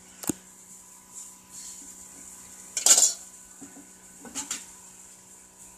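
Stainless steel cookware and utensils clinking and clattering: a sharp clink just after the start, a louder clatter about three seconds in, and a smaller one near the end.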